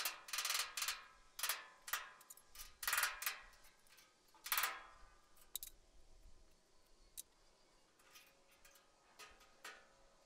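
Steel parts and tools clanking and being struck, metal on metal, each hit with a bright ringing tail. There is a quick run of strikes over the first five seconds, then a few lighter, sparser clinks.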